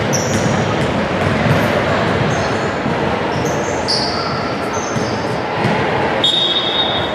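Basketball shoes squeaking in short bursts on a hardwood gym floor over shouting and chatter echoing in a large sports hall. Near the end a referee's whistle sounds for about a second, stopping play.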